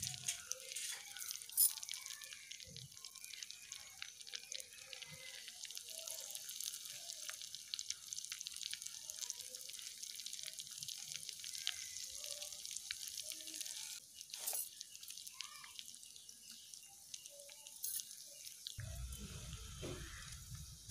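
Fish frying in hot oil in a small clay pot: a steady sizzle full of fine crackles, easing off a little past the middle. A few sharp clicks stand out, and a low rumble comes in near the end.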